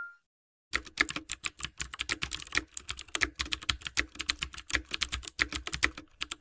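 Keyboard typing sound effect: a quick, uneven run of keystroke clicks, several a second, starting about a second in.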